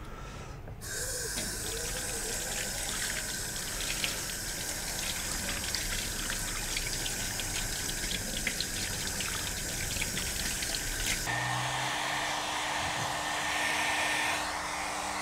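Kitchen tap water running over a 3D print and hands into a stainless steel sink, with light splashing, rinsing the sticky uncured resin off. About eleven seconds in it gives way to a steady whir with a faint high whine.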